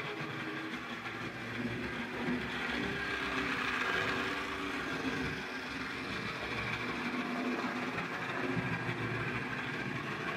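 Old Hornby Dublo Class 20 model diesel locomotive running on OO-gauge track: its small electric motor whirring and the wheels and gears rattling along the rails, running a bit rough. Its motor brushes are worn right down and its gears are clogged with dirt and gunk.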